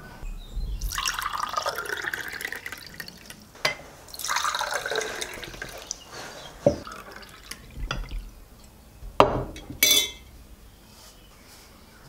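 An orange drink is poured from a glass jug into drinking glasses in two pours of a few seconds each, followed by several short glass clinks as glasses are set down.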